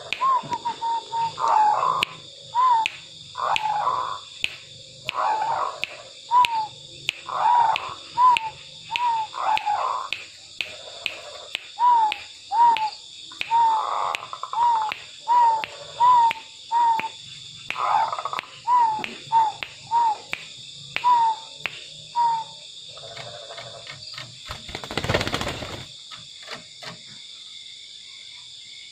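Zebra dove (perkutut) cooing in full song: a long run of short hooked coos, one or two a second, with rougher rolling coos between them, over a steady high insect buzz. The cooing stops near the end, just before a brief noisy rush.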